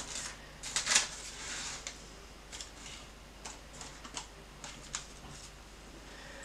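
Silicone spatula spreading thick fudge mixture in a parchment-lined loaf tin: irregular soft scrapes and taps, with the baking paper rustling, about one or two a second.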